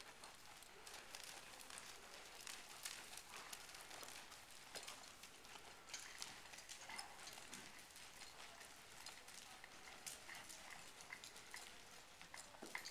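Faint hoofbeats of a buckskin Quarter Horse gelding moving at a slow gait over soft arena dirt: a steady run of light, irregular thuds and ticks.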